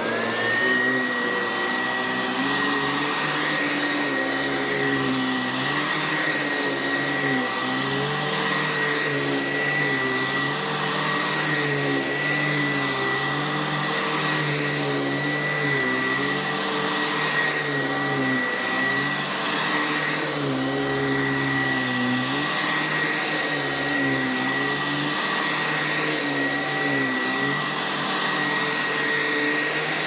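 Sanitaire 670B commercial upright vacuum switching on and running while pushed over carpet. It spins up right at the start, then holds a steady high whine over a lower hum that wavers up and down every second or two.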